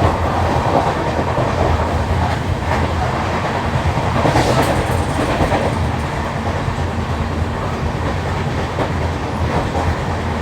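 LHB passenger coaches running along the track, with the repeated knocking of a wheel that has a flat spot worn into its tread, over a steady loud rumble.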